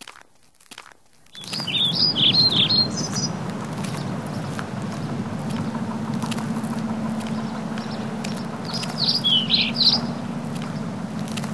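Birds chirping in two short bouts, one a second and a half in and another near nine seconds, over a steady low background noise that starts about a second in.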